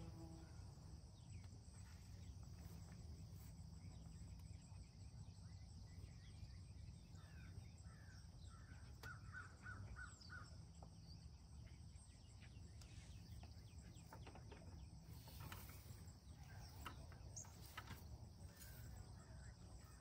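Near silence: faint outdoor ambience with a few faint, distant bird calls, clearest about halfway through.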